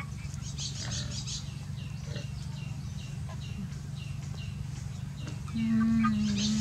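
Birds chirping in short, quick clusters of high notes over a steady low hum. About five and a half seconds in, a louder low call comes in, held at one pitch for about a second.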